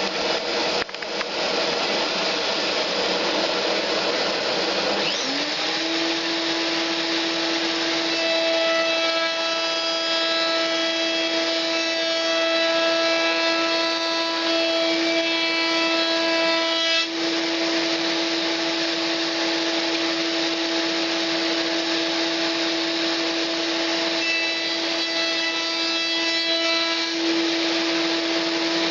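Kärcher vacuum running as chip extraction while a milling spindle spins up about five seconds in and holds a steady whine, its cutter milling wood. The whine grows harsher for several seconds from about eight seconds in, and again near the end, as the cutter bites.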